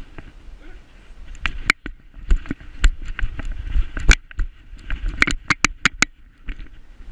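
A GoPro camera in a GoPro Fetch dog harness jostling on a moving dog's back: irregular sharp clicks and knocks over a low rumble of handling noise.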